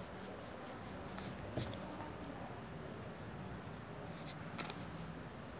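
Pencil on paper: light scratching strokes, with a short tap about one and a half seconds in and a few quick scratches near the end.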